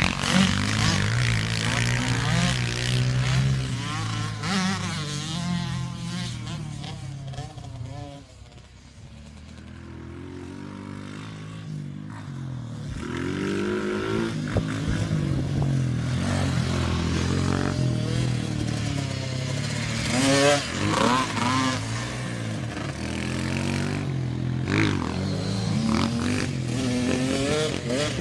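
Small pit bike engines revving up and down as they lap a dirt track, the pitch rising and falling with each throttle change. The sound fades as the bike moves away about a third of the way in, then grows louder again, with sharp rising revs later on.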